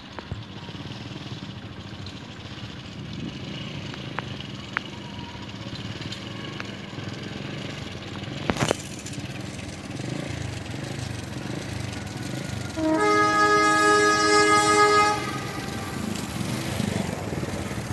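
Passenger train hauled by a diesel locomotive approaching, its engine and wheels rumbling louder as it nears. About 13 seconds in, the locomotive sounds its horn in one blast of about two seconds, several tones at once. A single sharp click comes a little before the horn.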